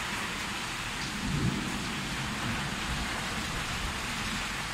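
Heavy rain pouring steadily in a thunderstorm, with a low rumble about a second and a half in.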